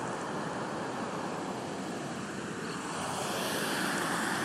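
Steady rushing noise of wind and rippling river water, growing a little louder about three seconds in.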